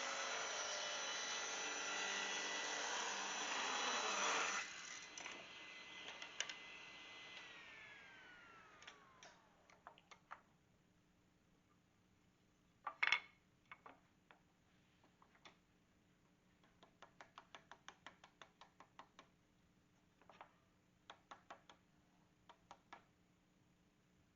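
Delta table saw cutting a thin strip off a board for about four and a half seconds. Its blade then winds down with a falling whine. Scattered clicks and knocks of wood being handled follow, one of them louder about halfway through.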